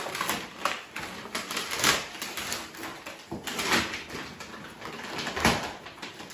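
Wrapping paper crinkling and tearing as a large cardboard gift box is unwrapped by hand, with handling of the box. Irregular rustles, with louder rips about two seconds in, near the middle and near the end.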